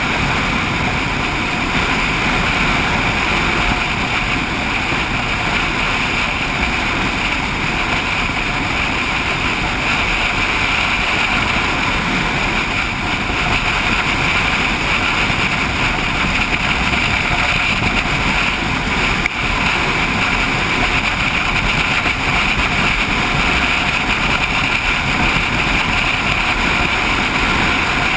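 Motorcycle cruising steadily at road speed: a constant rush of wind over the bike-mounted microphone mixed with engine and road noise, with a brief dip about two-thirds of the way in.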